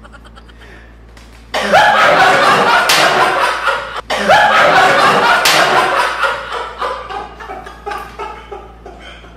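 A group of young men breaking into loud laughter about a second and a half in. After a short break near four seconds it carries on in shorter fits that slowly die down.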